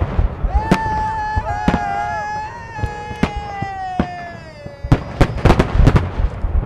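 Fireworks salute going off in a rapid run of sharp bangs, then scattered single bangs, then another dense run near the end. Over the quieter middle, long drawn-out shouts from several voices rise and slowly fall away, like a crowd cheering.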